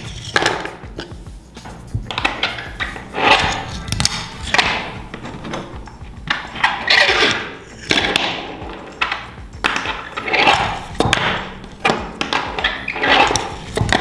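Fingerboard tricks on a miniature parking-block obstacle: sharp clacks of the small board hitting the table and the block, and repeated short scraping grinds of its trucks along the block's edge, each under a second.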